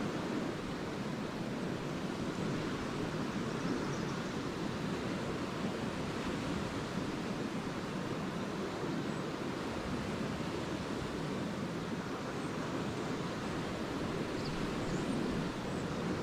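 Small lake waves washing steadily onto a sandy beach, with a few faint high bird chirps now and then.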